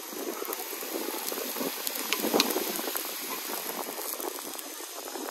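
Meat sizzling and crackling on the hot domed grill of a charcoal-fired moo kratha pan, with broth bubbling in the pan's rim.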